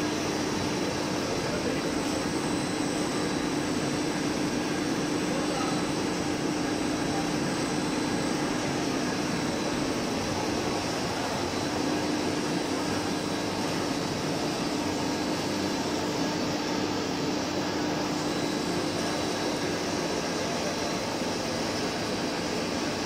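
PVC garden-hose extrusion line running: a steady machine drone with a constant low hum from its electric motors and fans.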